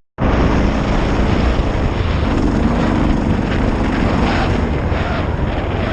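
Suzuki DR650's single-cylinder four-stroke engine running steadily while riding, under an even rush of wind and road noise; it starts abruptly just after a cut.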